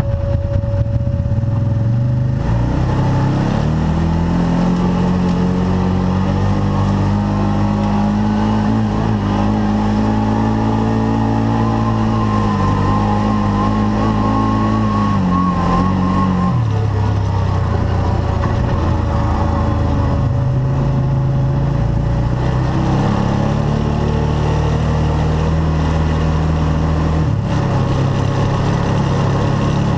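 Arctic Cat Wildcat side-by-side engine running under changing throttle: revs climb about two seconds in, hold, drop about halfway, climb again and ease off near the end. A steady high whine runs alongside at the start and through the second half.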